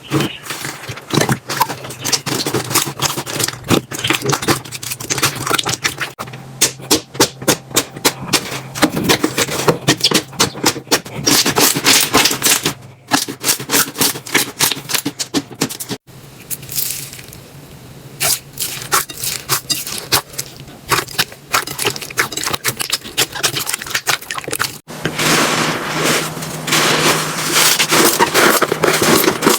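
Slime being squeezed and poked by hands: dense, rapid sticky clicks and crackles, broken by abrupt cuts between short clips about 13, 16 and 25 seconds in.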